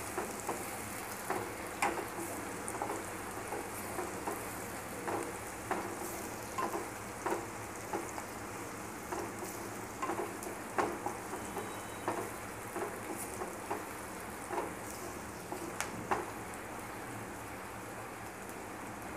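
Sliced onions sizzling in hot oil in a kadhai as they fry toward golden brown, a steady hiss. A wooden spatula stirring them gives short taps and scrapes against the pan every second or so, fewer near the end.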